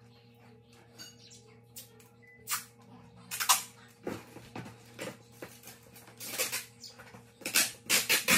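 Packing tape pulled off its roll in loud ripping streaks, from about three seconds in and repeatedly through the second half, as it is pressed down onto a cardboard box.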